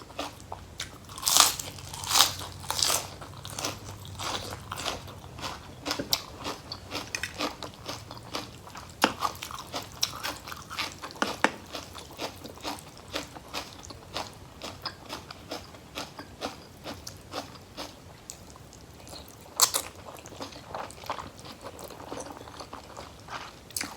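A person chewing and crunching food, a steady run of crisp crunching clicks, with a few louder bites about a second in, at two seconds and near the end.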